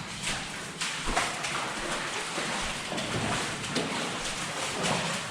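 Irregular footsteps scuffing and crunching over a rocky mine-tunnel floor.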